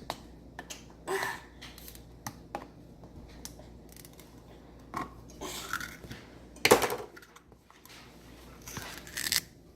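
Kitchen handling noises: scattered clicks and light knocks of utensils and containers, a few short rustles, and one louder knock a little under seven seconds in.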